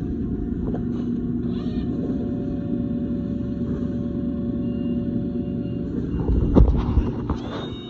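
Hydraulic power unit of a 70-ton Betenbender press brake running with a steady hum. About six and a half seconds in, a louder, heavier rush with a few knocks rises and then eases off.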